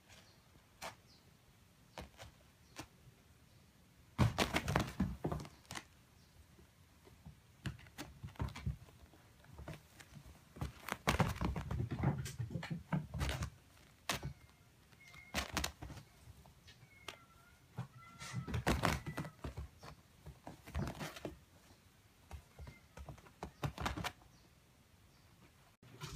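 Kittens' paws batting, scrabbling and thumping on a tatami mat as they pounce on a small toy, in irregular bursts of knocks and scuffs.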